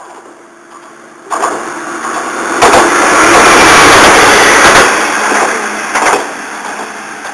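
Kanto Railway Joso Line diesel railcar passing close by at speed without stopping. The engine and the wheels on the rails grow louder over about a second, are loudest for about two seconds as the cars go by, then fade as the train pulls away, with a sharp clack about six seconds in.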